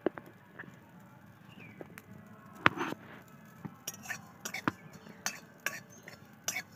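Flat metal spatula scraping and clinking against an aluminium kadai, stirring whole spices dry-roasting in it. The clinks come irregularly, with one louder strike about two and a half seconds in.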